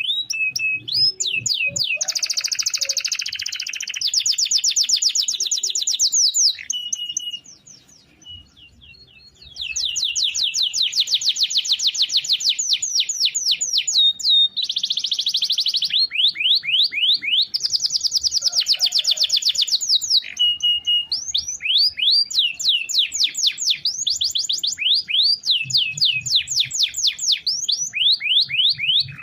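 Domestic canary in full song, singing long rolling trills of fast repeated high notes, several rolls a few seconds long each. The song breaks off briefly about seven seconds in, then resumes.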